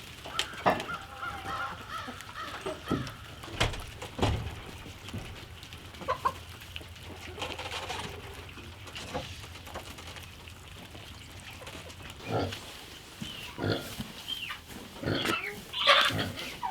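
Farmyard animals at feeding time: pigs grunting and poultry calling, with scattered knocks and clatter. A run of short calls comes early on and another cluster near the end.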